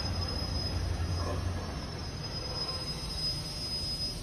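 TTC Toronto Rocket subway train pulling into the station and slowing to a stop, with a low rumble of wheels and motors under a thin steady high-pitched tone that stops near the end.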